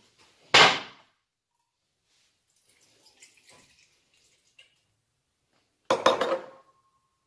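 Water from a glass trickling faintly into a steel saucepan, framed by knocks of kitchenware: one sharp knock about half a second in, and near the end a clatter of several knocks as the saucepan is set on the glass hob, followed by a short beep.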